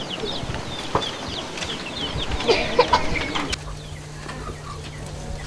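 Chickens clucking and peeping in quick short calls, with a few light knocks. About three and a half seconds in the calls thin out and a steady low hum takes over.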